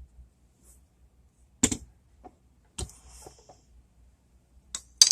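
A few sharp knocks and clicks about a second apart, the second followed by a short hiss: handling of a pressure cooker and kitchen things.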